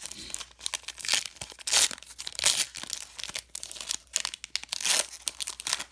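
Plastic-foil baseball card pack wrapper crinkling and tearing as it is pulled open and handled, in irregular bursts of crackle.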